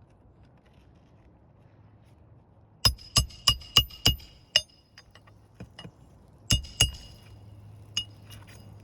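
Hammer striking roofing nails: a quick run of six sharp metal-on-metal blows, each with a short high ring, then after a pause three more, with a couple of lighter taps in between.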